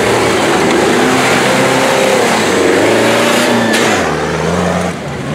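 Modified off-road truck's engine revving hard as it drives through mud, its pitch rising and falling, then settling to a steadier, lower note after about four seconds.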